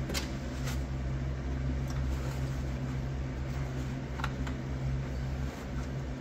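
Steady low hum of a running shop fan, with a few short clicks from hands working in the car's body cavity, two near the start and one past the middle.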